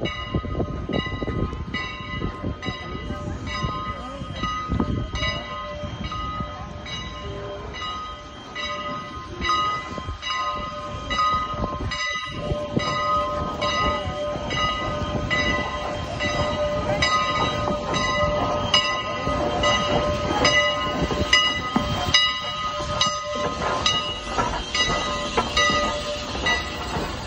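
Steam locomotive No. 89, a 2-6-0 Mogul, rolling slowly past close by, its bell ringing in a steady, even rhythm over the low rumble of the moving engine.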